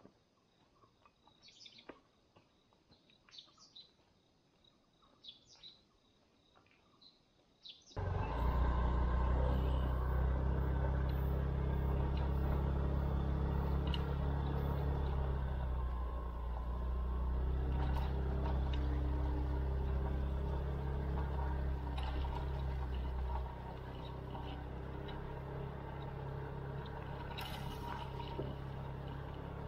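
Faint bird chirps over quiet surroundings, then about eight seconds in the steady running of a motorcycle engine cuts in suddenly and carries on at an even, low drone.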